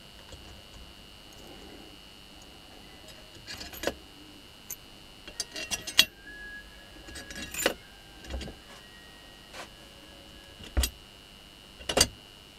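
Scattered metallic clinks and knocks from bolts and the end bracket of a washing-machine motor being handled. The clicks come in clusters from a few seconds in, the loudest about six seconds in.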